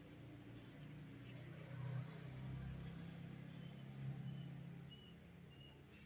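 A low, steady engine hum, swelling slightly and easing off again, with about four short, faint high chirps spaced evenly through the second half.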